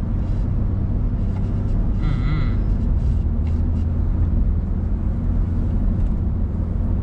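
Steady low rumble of engine and road noise heard inside a moving car's cabin. A brief, high, wavering tone sounds about two seconds in.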